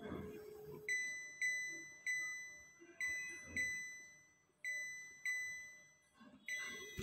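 Portable ultrasound therapy machine beeping as its control-panel button is pressed: about eight short electronic beeps, each a clear tone that starts sharply and fades, spaced irregularly about half a second to a second apart.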